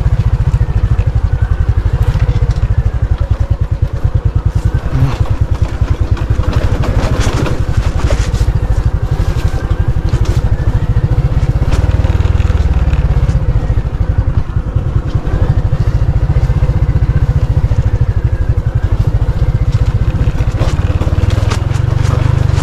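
Motorcycle engine running steadily under load, a dense low putter, with occasional knocks and rattles over a rough track.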